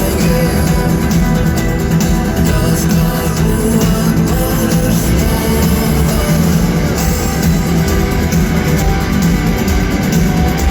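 Loud rock music with guitar, drums and singing.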